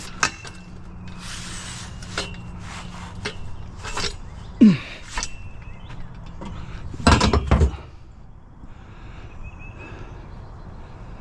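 Steel trampoline frame pieces being handled: scattered knocks and clanks of metal tubing, with a heavier clatter about seven seconds in.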